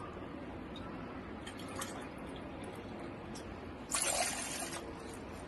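Water being poured into a cooking pan, loudest in a short pour of about a second, four seconds in, with a few light knocks before it.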